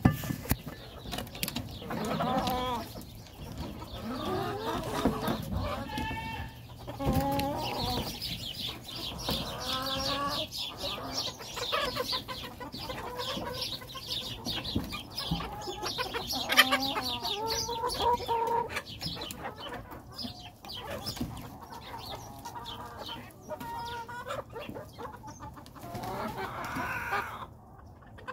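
A flock of chickens clucking and calling, with many overlapping calls throughout.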